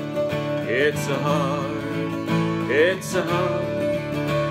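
Acoustic guitar strummed steadily as song accompaniment, with a voice drawing out long, gliding notes of the chorus over it.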